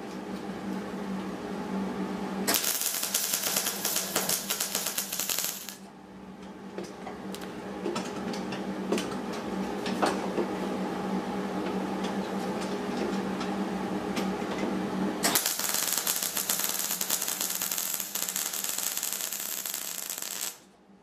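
MIG welder arc crackling steadily as a bead is run along a steel corner joint, over a steady low hum, stopping abruptly near the end.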